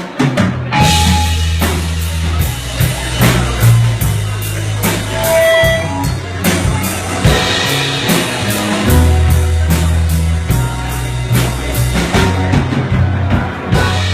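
Indie rock band playing: drum kit hits at a steady beat over long held bass guitar notes, with guitar above.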